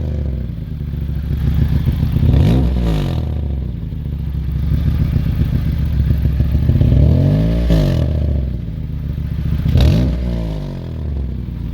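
Honda CR-V 2.4-litre four-cylinder engine running and revved in short blips about three times, its pitch rising and falling back each time.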